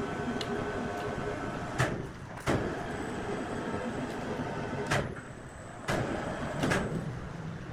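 Sawmill machinery running with a steady rumble, with about five sharp metallic clanks spread through it.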